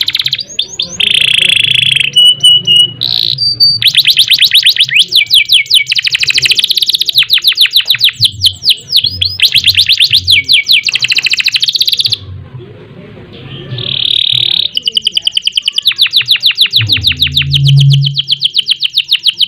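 Domestic canary singing long, fast trills and rolls of rapidly repeated high notes, broken by a short pause about twelve seconds in.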